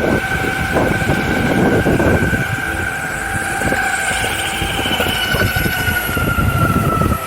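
Ownboard Carbon AT electric skateboard riding, its dual 1500 W geared motors giving a steady high whine that drops slightly in pitch near the end, over the rumble of its 6-inch honeycomb all-terrain tyres on the ground.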